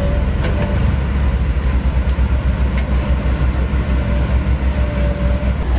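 Komatsu PC130F swamp excavator's diesel engine running as the machine moves on its tracks: a loud, low rumble that flutters rapidly.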